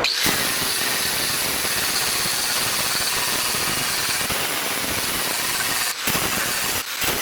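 Angle grinder grinding paint off a steel car fender, a steady high grinding hiss with two brief dips near the end.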